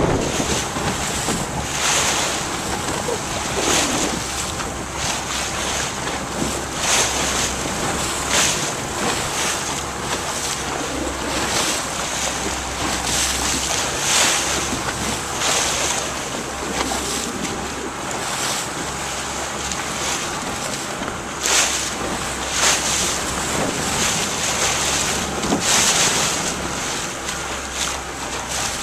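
Small boat under way on choppy sea: wind rushing over the microphone and water splashing against the hull every second or two, over a faint steady motor hum.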